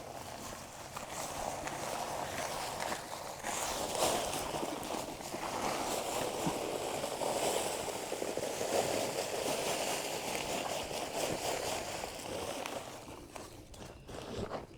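Dry concrete mix pouring from a bag into a post hole, a steady gritty rush that fades out near the end.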